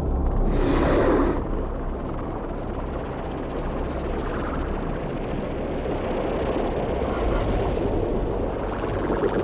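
Cartoon underwater sound effects for a small submersible diving: a steady low rumble, with a rushing burst of bubbles about a second in and a short hiss near the end.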